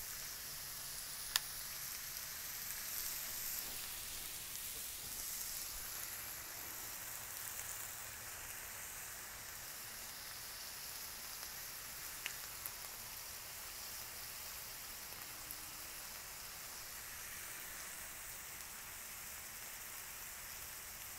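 Ribeye steaks sizzling steadily on the lower-heat side of a Blackstone flat-top griddle, the slower cook before the sear. Two sharp clicks stand out, one about a second in and one about halfway through.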